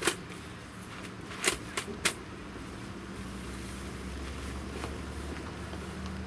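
A few sharp clicks and knocks as a folding camp table with metal legs is set down on the groundsheet, then a steady low hum sets in about three seconds in.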